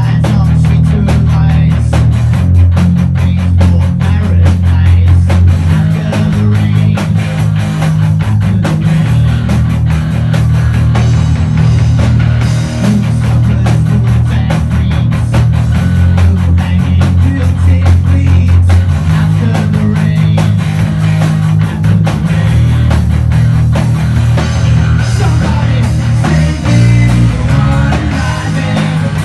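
A live rock band playing: electric bass guitar, electric guitars and a drum kit. The bass line is the loudest part, with dense, steady drumming over it.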